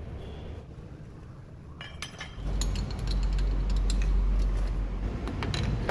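Metal tooling clinking and knocking as a drill chuck is handled and fitted into a lathe's tailstock quill; the clinks start about two seconds in, and a steady low hum comes in underneath shortly after.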